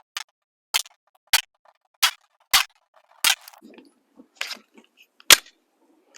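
A red-dot pistol being fired in slow, aimed single shots, eight sharp reports about half a second to a second apart, while a magazine is shot through to check the zero.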